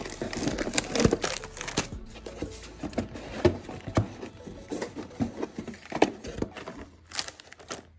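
A homemade foam-board vending machine's door flap and the cardboard candy boxes inside being handled: irregular knocks, taps and rustles, with a few sharper knocks along the way, stopping just before the end.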